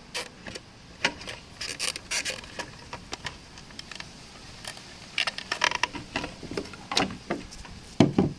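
Hand-handling noises from a car's fuel pump assembly being taken apart: a string of light plastic-and-metal clicks, knocks and short scrapes, with a louder knock about eight seconds in.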